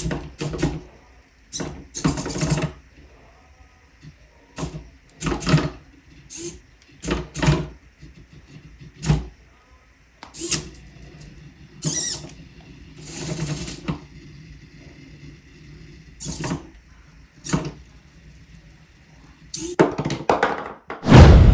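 Joint motors of a remote-controlled robot arm prototype moving in short, irregular bursts, about a dozen of them, with clicks and knocks between. A loud thump near the end.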